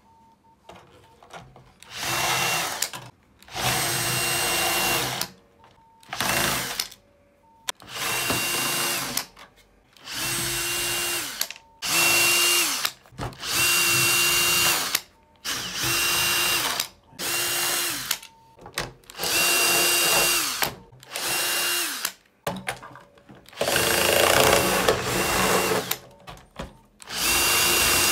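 Cordless drill running in more than a dozen short bursts of about a second each, its motor whine rising as it spins up and dropping as it stops.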